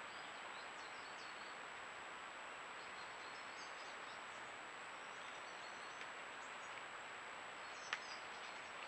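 Steady hiss from the trail camera's microphone, with a thin high tone and faint scattered bird chirps. One sharp click near the end.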